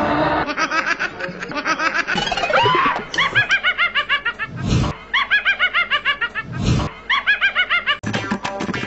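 Laughter in quick repeated high-pitched bursts, broken twice by a short heavy thump. Music with a percussive beat starts near the end.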